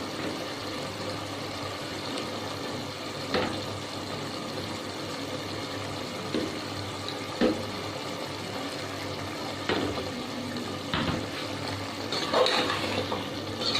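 Chicken in a watery masala of onion, tomato, spices and yogurt steadily bubbling and sizzling in a pot on the stove, with a few sharp knocks and a clatter near the end.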